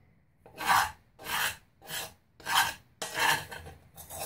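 Metal kitchen spoon scraping fine aluminium powder around the inside of a bowl, in about five rasping strokes of half a second each.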